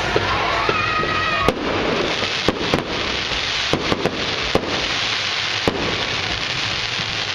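Fireworks display: a steady crackling hiss with about eight sharp bangs scattered through, and a high whistling tone over the first second and a half.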